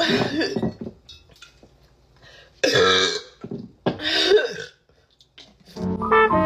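A woman burping: a short burp at the start, then two long, loud burps about two and a half and four seconds in. Brass music comes in near the end.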